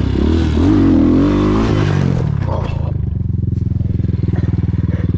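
250 cc Chinese dirt bike engine revving up and down under a rush of wind noise. About three seconds in it settles to a steady idle as the bike lies tipped over on its side in the grass, still running.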